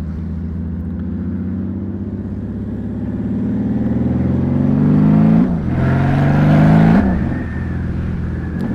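Honda Valkyrie's flat-six engine through six-into-six Cobra exhaust pipes, accelerating hard onto a freeway: the pitch climbs for about five seconds, drops at an upshift, climbs again, drops at a second upshift about a second and a half later, then holds steady at cruising speed. Heard from a microphone inside the rider's helmet, with some wind noise during the hardest pull.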